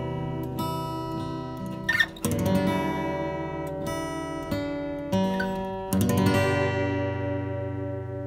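Background music on acoustic guitar: a run of strummed chords, the last, about six seconds in, left to ring and slowly fade.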